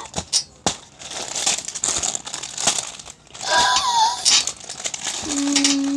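Crinkling and rustling of paper or plastic packaging being handled, with a short vocal sound about three and a half seconds in and a steady held vocal note near the end.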